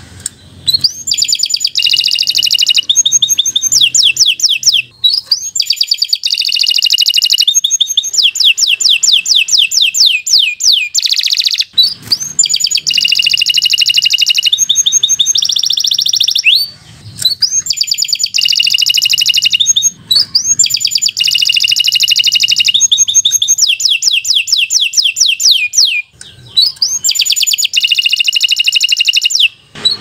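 Domestic canary singing a long song of fast trills of repeated notes, with rising whistled sweeps between phrases and only a few short pauses.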